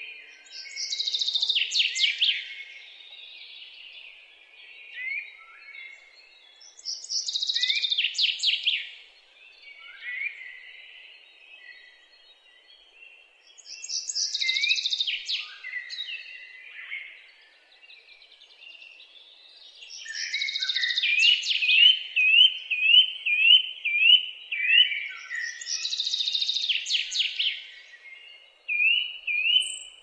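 Common chaffinch singing five times, about six seconds apart; each song is a fast run of notes falling in pitch and ending in a flourish. Softer chirping from other birds runs underneath, and in the second half there is a repeated short rising note, about two a second.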